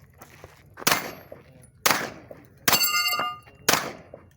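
Four pistol shots about a second apart. The third is followed by the ringing clang of a steel target being hit.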